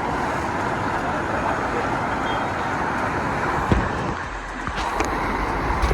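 Steady rushing noise of waterpark water running and splashing, with a short knock about four seconds in.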